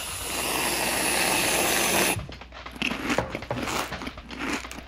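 Aerosol can of whipped cream spraying into an open mouth: a steady hiss for about two seconds that cuts off sharply. Soft wet mouth smacks and clicks follow as the cream is held and eaten.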